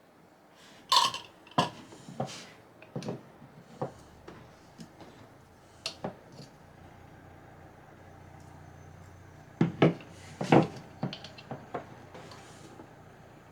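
Scattered knocks and clatter of hard objects being handled, likely plumbing parts and tools during drain fitting: a cluster of sharp knocks about a second in and another around ten seconds, with a faint low hum between.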